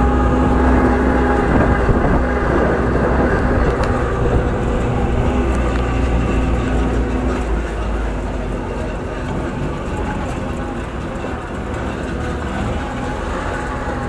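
Off-road truck engine running under way, heard from the open back, with rumble and wind noise. About halfway through the engine note drops and the sound eases slightly.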